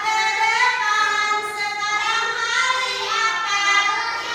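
A child singing a melody in a high voice, holding each note briefly before moving to the next.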